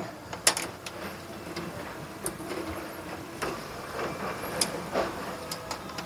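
Handling noise of wires being worked through a slotted plastic wire channel: light rustling and scraping with a few sharp plastic clicks, the loudest about half a second in and again near the middle.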